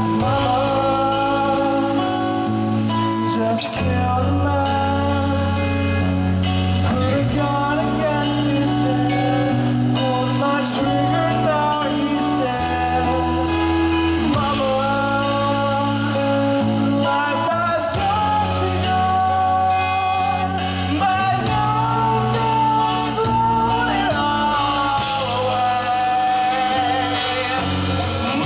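Live rock band playing through a PA: electric guitars, bass guitar and drum kit, with a male lead singer singing into the microphone.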